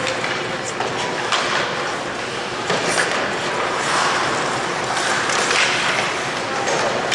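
Ice hockey play: skate blades scraping and cutting the ice in a steady hiss, with a few sharp clacks of sticks and puck.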